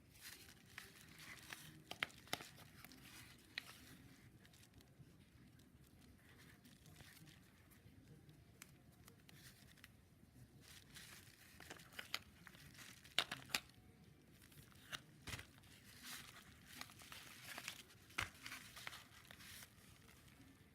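Faint rustling and crinkling, broken by scattered sharp clicks and taps, loudest in clusters about two seconds in, around twelve to thirteen seconds in, and near eighteen seconds in.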